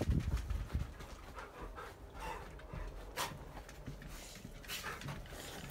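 Dogs panting, with a few sharp clicks and a low rumble in about the first second.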